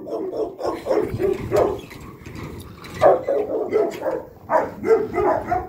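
Guard dog barking repeatedly in short, quick barks, easing off for about a second around the middle, then barking again.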